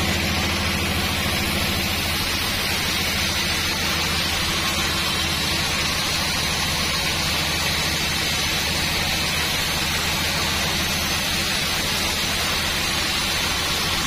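Band sawmill running with its blade cutting steadily through a dry, weathered log: an even hiss over a low motor hum that holds without a break.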